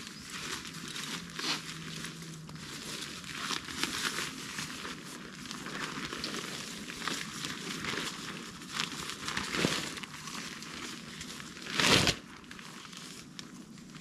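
Irregular crinkling and rustling handling sounds, with one louder crunching noise about twelve seconds in.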